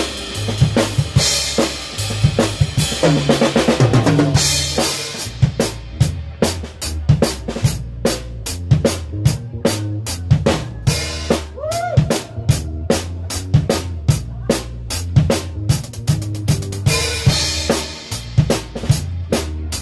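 Drum kit played in full: a steady run of bass drum, snare and rimshot hits, with cymbals washing out in the first few seconds and again near the end, over a bass line that moves in steps underneath.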